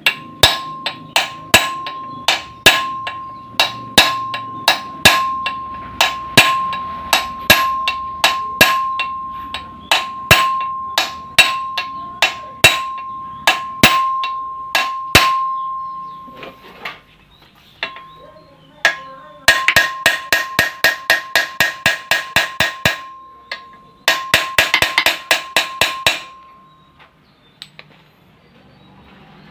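A hammer striking a steel punch held on a car's lower control-arm ball joint while the ball joint is rebuilt, each blow ringing out metallically. The blows come at a steady pace of about one and a half a second, then, after a short pause, in two quicker runs of taps.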